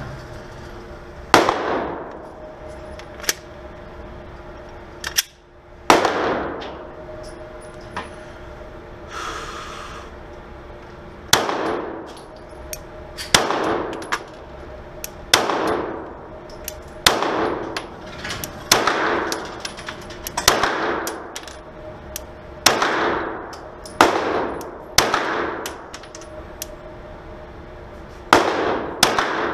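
Glock 17 9mm pistol firing about a dozen shots in slow, aimed fire, mostly one to two seconds apart with a few quicker pairs. Each shot rings on in the reverberation of the indoor range. A steady hum runs underneath.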